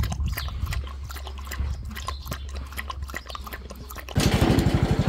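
A Jindo dog lapping milk from a plastic bowl: a quick run of wet tongue clicks and slurps. About four seconds in, this gives way abruptly to a louder engine running with a fast, even beat.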